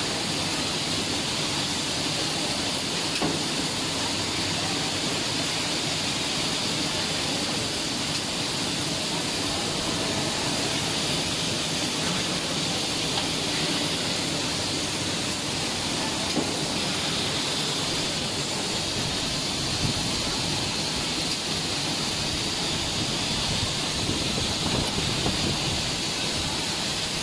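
Steady factory-floor machinery noise around an induction brazing machine: a continuous hiss with a low hum underneath and a few faint knocks.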